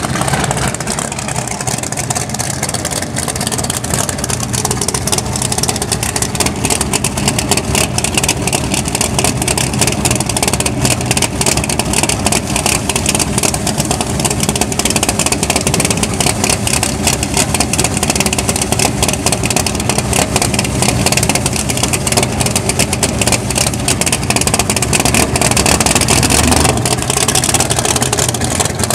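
Pro Street drag cars' big-block racing engines running loud and hard through burnouts at the starting line, a steady, fast crackling drone.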